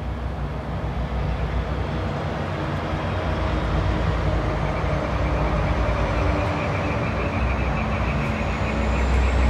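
Heavy truck's diesel engine running in the street, its low rumble slowly getting louder as it comes closer.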